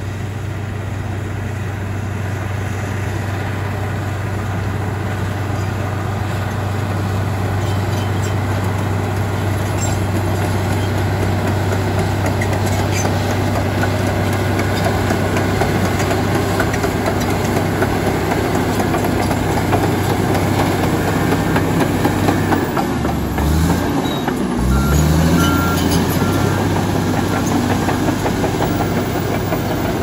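Komatsu D85EX crawler bulldozer's six-cylinder diesel engine running under load as it pushes loose earth and rock, with a steady clatter from the steel tracks and stones. The engine grows louder as the machine approaches, and its note drops briefly and climbs back about three-quarters of the way through.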